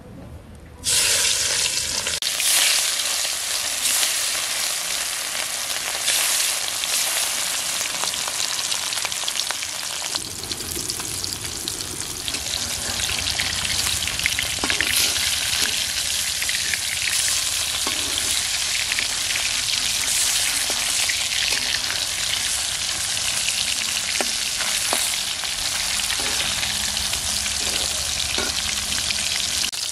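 Rohu fish pieces hitting hot mustard oil in a metal karahi, bursting into a loud, steady sizzle about a second in and frying on. A metal spatula scrapes the pan and turns the fish now and then.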